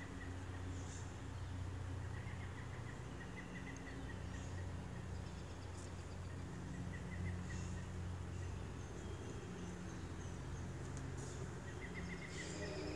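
Quiet outdoor ambience: a short, fast trill comes back every few seconds over a steady low hum, with a few faint high chirps.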